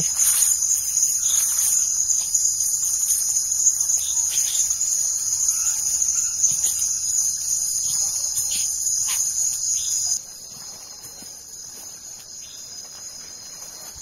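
Steady, high-pitched chorus of night insects, with a few faint clicks and rustles beneath it. About ten seconds in, it drops abruptly to a much fainter level.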